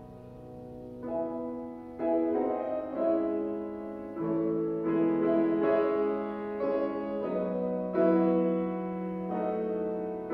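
Grand piano played solo: a slow piece of sustained chords over held bass notes. A low chord fades at the start, and new chords come in about a second in.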